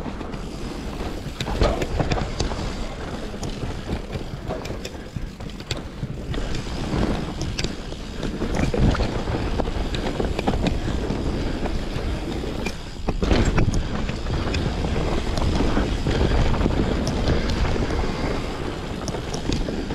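Mountain bike riding down a dirt singletrack: tyres rolling and crunching over dirt and roots while the bike rattles with many small clicks and knocks over the bumps, under wind rushing on the microphone. It gets louder about two-thirds of the way through.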